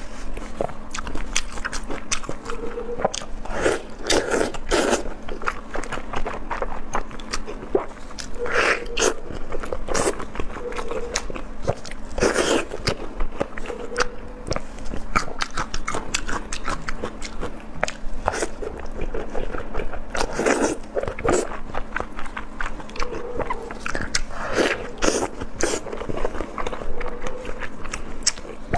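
A person biting and chewing intestine bundles close to the microphone. It is a continuous run of wet mouth clicks and smacks, with louder clusters of bites every few seconds.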